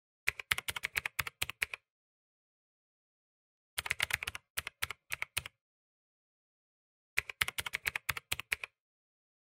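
Computer keyboard typing sound effect: three quick runs of key clicks, each about a second and a half long, with dead silence between them.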